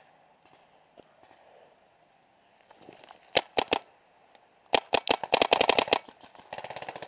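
Paintball marker firing: three quick shots about three and a half seconds in, then a rapid string of about a dozen shots, and a fainter rapid string near the end.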